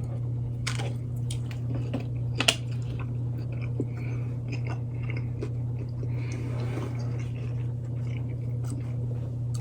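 A person chewing a mouthful of fried chicken sandwich, with scattered wet mouth clicks and a sharper bite about two and a half seconds in, over a steady low hum.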